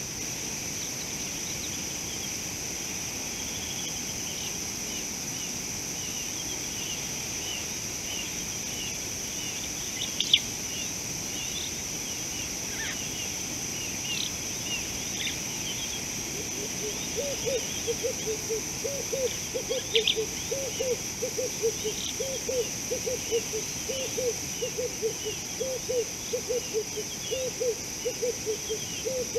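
Natural outdoor ambience: a steady high insect drone with small birds chirping over and over, and a couple of sharp clicks. From a little past halfway a lower animal call starts repeating, about twice a second.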